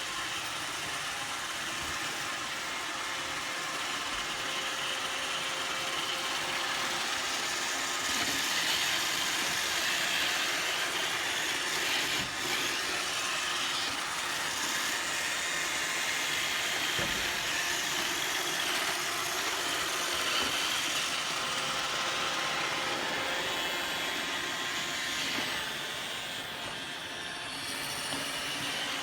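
Roomba robot vacuum running steadily, its motor and brushes making a constant mechanical noise that dips slightly near the end.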